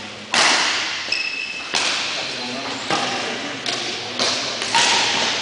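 Badminton rally in a reverberant sports hall: racket strikes on the shuttlecock, sharp and about a second apart, each ringing on in the hall, with short high squeaks from shoes on the court floor between them.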